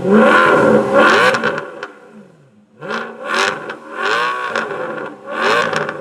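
A sports car engine revved in repeated blips, its pitch rising and falling with each one. Loud at first, it dies away briefly about two seconds in, then several more revs follow from about three seconds in.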